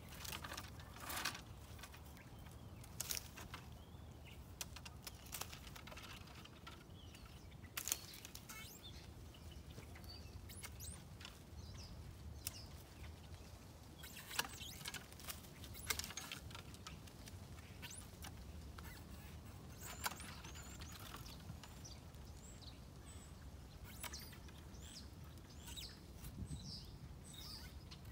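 Long-handled loppers cutting through dormant pluot branches, a sharp snip every few seconds. Small birds chirp faintly between the cuts.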